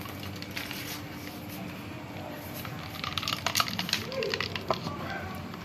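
A cat eating chicken and raw fish out of a plastic bag: crinkling of the bag and quick clicks of chewing, busiest in the second half, over a steady low hum.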